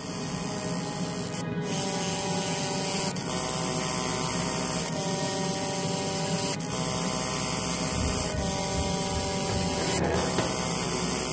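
A 50 W fiber laser ablating the plastic package of a DIP chip: a steady buzzing hiss with a short break about every second and a half to two seconds. Background music with sustained tones plays throughout.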